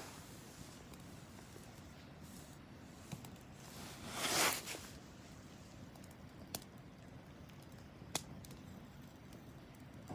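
Wood fire burning with a low steady crackle, a few sharp single pops, and one louder hiss of about half a second a little before the middle.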